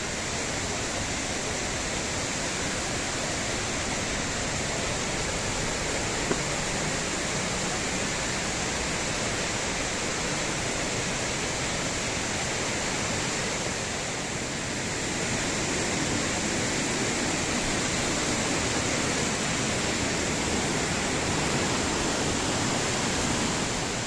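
A fast, shallow mountain stream rushing over rocks and boulders: a steady, unbroken rush of water.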